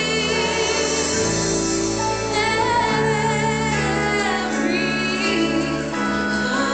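Young choir singing a song with instrumental accompaniment, high female voices most prominent, holding long notes with vibrato over steady accompanying chords.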